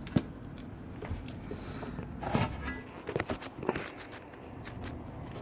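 Handling noise: a sharp click just after the start, then a short scraping rustle and a few scattered clicks and knocks.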